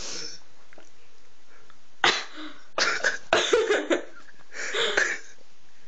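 A person sneezing in a run of sharp bursts, the first about two seconds in and several more over the next three seconds.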